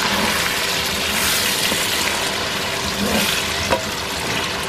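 Vegetables sizzling in hot oil in a non-stick wok while a wooden spatula stirs them, with a few light scrapes and knocks of the spatula against the pan.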